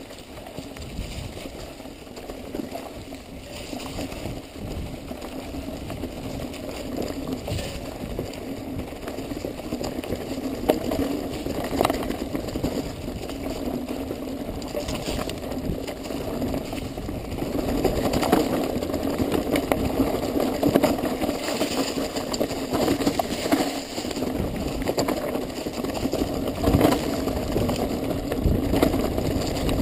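Mountain bike descending a rough, leaf-covered trail: a steady rush of tyre and wind noise with scattered knocks and rattles from the bike over rocks and roots, louder in the second half.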